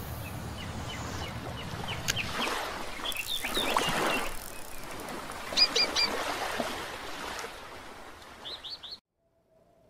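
Small birds chirping in short quick clusters over a steady rushing noise, as in outdoor ambience. It all cuts off abruptly about a second before the end.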